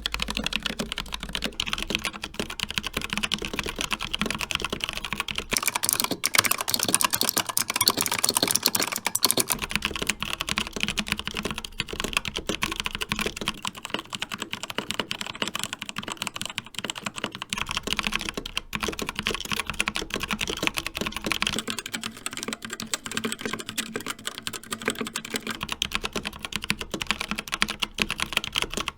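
Continuous typing on mechanical keyboards, several boards in turn. First come the ROG RX Red linear optical switches of an Asus Strix Scope RX, then about five seconds in the Razer Purple clicky optical switches of a Razer Huntsman Mini, which are the loudest and sharpest. About thirteen seconds in come the Gateron Brown tactile switches of a Keychron K4, and about twenty-one seconds in the Kailh Red linear switches of a CZC Halfling.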